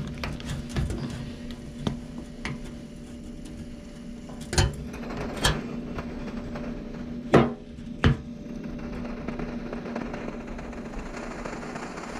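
Hands working the metal parts of a cold MSR Firefly liquid-fuel stove: a scattering of sharp metallic clicks and knocks, the loudest about seven seconds in, over a steady low hum. A faint hiss builds near the end.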